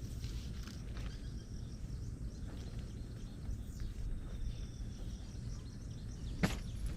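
Outdoor ambience: a steady low background noise with faint high chirping calls, and one sharp knock near the end.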